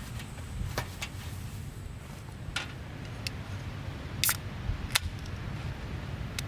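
A few short sharp clicks and taps, spaced irregularly about a second apart, the loudest two near the middle, over a low steady rumble.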